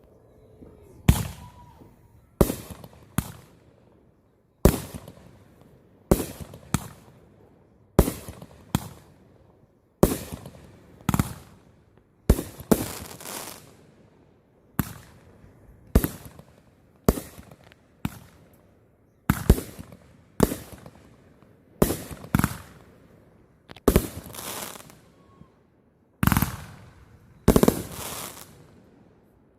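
Fireworks going off: a long series of sharp bangs, roughly one or two a second, each dying away quickly, with a few in close pairs.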